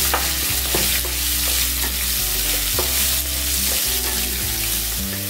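Chopped onions with whole spices sizzling in hot oil in a nonstick kadai as they are sautéed, stirred with a spatula that scrapes and knocks against the pan every so often.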